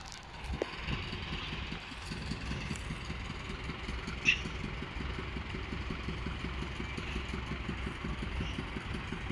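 Steady low engine rumble of the park railway's locomotive idling at the station, heard from afar. A short high squeak cuts in about four seconds in.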